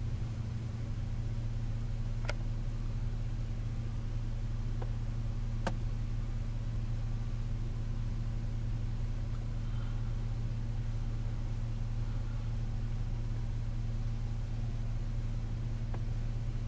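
Vehicle engine running steadily at an unchanging pitch, heard from inside the cab, with two faint clicks about two and six seconds in.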